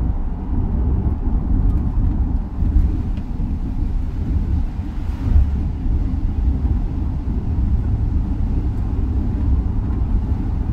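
Steady low road rumble and engine hum heard inside the cabin of a moving vehicle.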